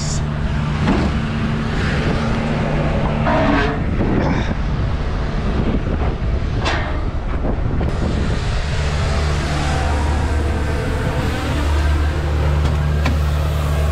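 A vehicle engine idling with a steady low hum, with one sharp tap about seven seconds in.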